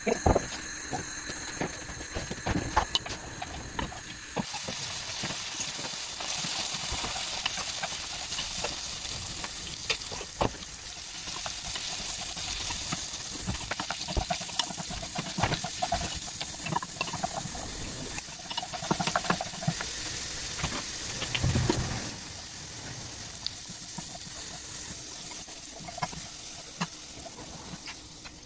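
Diced potatoes sizzling as they fry in hot oil in a stone-coated frying pan, with occasional sharp clicks. The sizzling grows louder about four seconds in and eases off after about twenty-two seconds.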